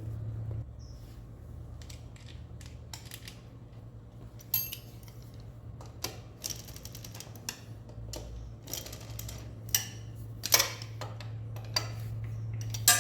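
Scattered light clicks and metal clinks of engine parts and tools being handled and set down, with a few sharper knocks in the second half, over a steady low hum.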